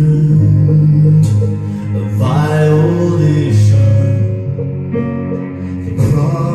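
Live band music: long held low notes with a melody moving over them, rising about two seconds in and entering again near the end.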